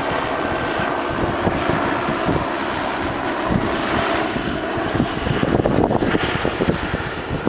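Wind buffeting the microphone in gusts, with a steady engine drone running under it.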